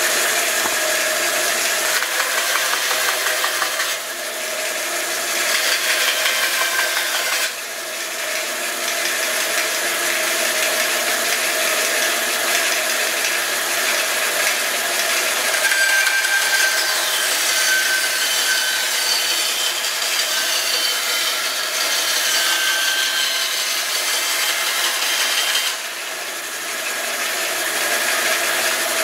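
A 14-inch wood bandsaw cutting through an old scrap pallet board as a test cut, the blade running steadily through the wood with a few short drops in level.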